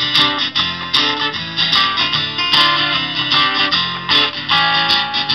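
Live rock band playing an instrumental stretch between sung lines: strummed guitars carry the chords, changing every half second or so.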